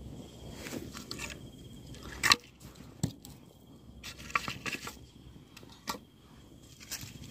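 Split sticks of firewood knocking and scraping against each other and the stones as they are laid on a small campfire: a few sharp wooden knocks, the loudest a little over two seconds in.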